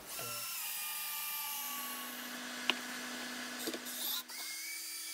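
Cordless drill driving a 10–12 inch T40 screw down into wood. The motor whines steadily under heavy load, its pitch sagging slightly, with a sharp click near the middle. It breaks off briefly about four seconds in and picks up again at a slightly different pitch.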